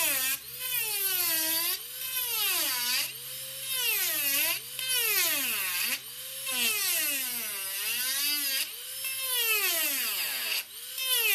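Grobet Marathon micro-motor handpiece at full speed cutting into a wood block. Its high whine dips in pitch each time the cutter is pushed into the wood and climbs back as the pressure eases, over and over, with the motor loading down as it hogs off wood.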